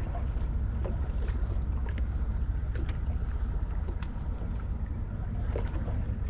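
Steady low wind rumble on the microphone and water against the hull of a small fishing boat, with a few faint scattered clicks.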